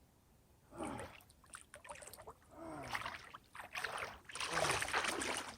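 Water splashing and sloshing as a person wades into ice-cold water of about 37°F for a swim. It starts about a second in and grows louder toward the end, with a few short falling groans.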